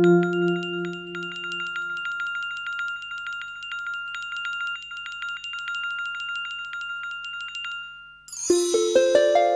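Small handbell rung rapidly and continuously, a bright tinkling of one steady pitch with many strokes a second. It stops about eight seconds in, and a rippling run of keyboard notes starts near the end.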